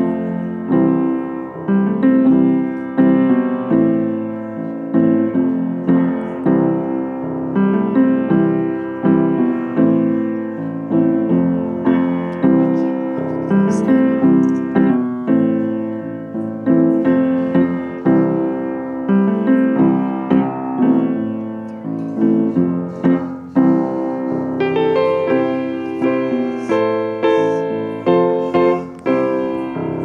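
Solo piano playing a piece of music, notes and chords struck and left to ring, with higher notes joining in near the end.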